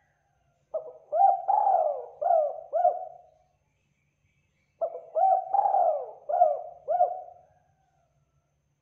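Spotted dove cooing: two phrases of about five coo notes each, every phrase about three seconds long, with each note bending up and down in pitch and a gap of just over a second between the phrases.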